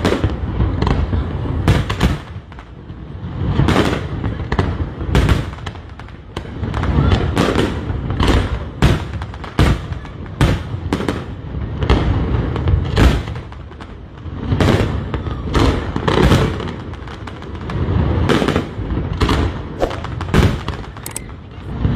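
Fireworks display going off: an irregular run of sharp bangs and booms, often several a second, over a low rolling rumble that swells and fades.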